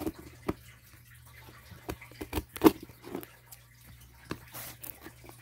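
Small scissors working at a cardboard mailer, with irregular clicks, snips and handling knocks and one louder knock about two and a half seconds in.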